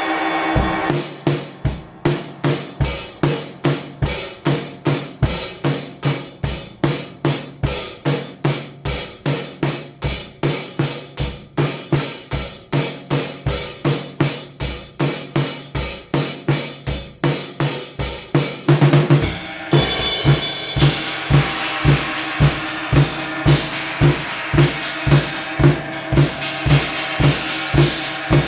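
Drum kit played in a steady beat, with bass drum, snare and cymbals at about three hits a second. About two thirds of the way through it changes to a pattern under a constant wash of cymbals.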